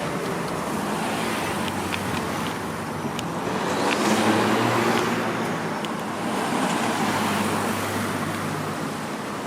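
Street traffic: cars and other vehicles driving past steadily, with one louder vehicle passing about four seconds in.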